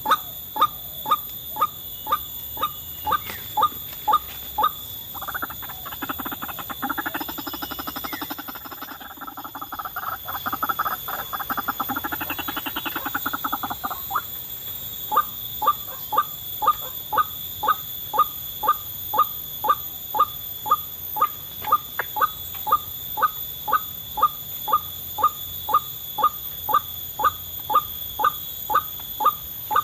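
White-breasted waterhen calls: short pitched notes repeated evenly about twice a second, with a stretch of denser, rapid chattering from about five seconds in that gives way again to the steady repeated calls near the middle.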